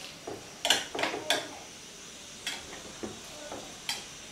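Metal spatula clinking and scraping against a ceramic plate as it is worked under squares of burfi to lift one out: three sharp clinks in quick succession about a second in, then a few fainter taps.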